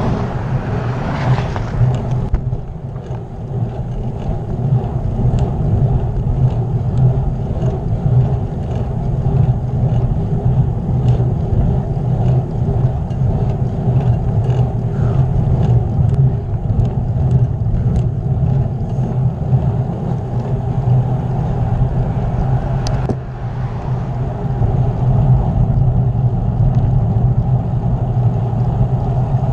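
Steady rushing wind and road rumble on the microphone of a camera riding on a moving bicycle, with faint scattered ticks.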